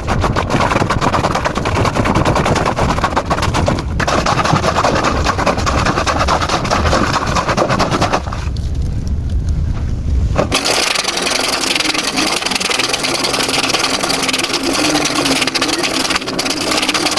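Laundry being worked by hand in water with a homemade thick-plastic portable washer, making a rapid, rhythmic churning and sloshing. About ten seconds in the sound changes abruptly to a brighter hiss with less low rumble.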